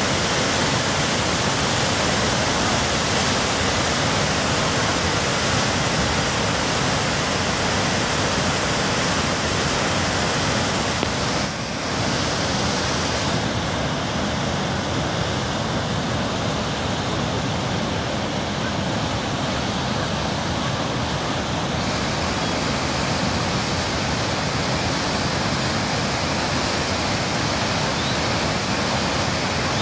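Muddy, sediment-laden river in flood rushing through large standing waves: a loud, steady rush of water, dipping briefly about halfway through.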